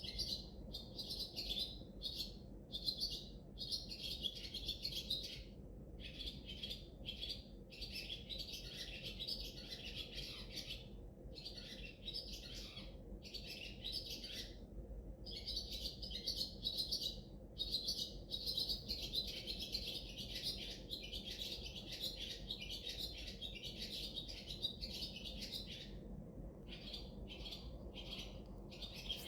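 Small birds chirping and twittering in a dense, almost continuous chorus, broken by short pauses.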